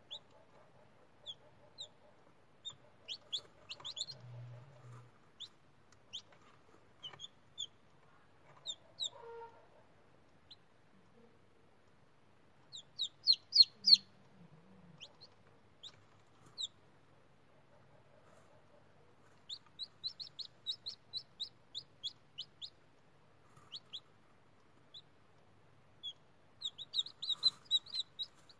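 Newly hatched chicken chicks peeping: short, high, falling chirps in quick runs, loudest about halfway through.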